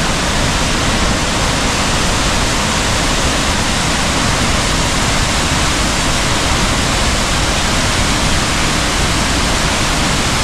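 Waterfall: a steady, loud rush of falling water that cuts off suddenly at the end.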